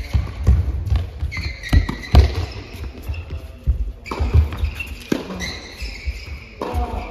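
Tennis balls struck with rackets and bouncing on an indoor hard court during a rally, a sharp hit or bounce every second or so, echoing in a large hall.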